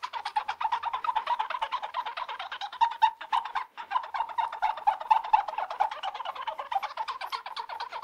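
Fingers rubbing quickly back and forth over teeth: a fast, rhythmic run of short rubbing strokes, about ten a second, with a brief break about three and a half seconds in.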